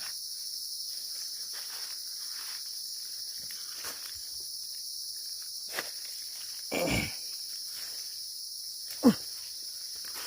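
Forest insects keep up a steady high-pitched drone. Over it come soft footsteps and brushing in the undergrowth on a steep path, a louder rustle about seven seconds in, and a sharp knock just after nine seconds.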